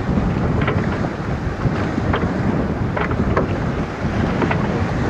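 Strong wind buffeting the microphone on an open boat, a loud steady rumble, with water noise and a few brief sharp sounds scattered through it.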